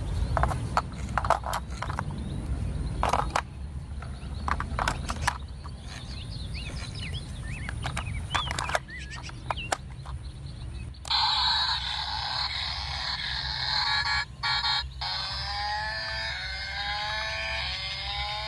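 Sharp plastic and metal clicks as AA batteries are pressed into a toy car's battery compartment and its cover is snapped shut. About eleven seconds in, the toy's built-in electronic sound effects start suddenly from its small speaker: a busy electronic tune with repeated rising tones.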